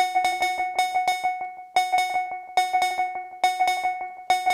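A modular synthesizer playing a sequenced pattern of short, metallic, cowbell-like notes that repeats a little faster than once a second. Each note is struck sharply and rings on the same bright pitches. The patch sends audio feedback through a Doepfer A-138m matrix mixer back into the second oscillator's input.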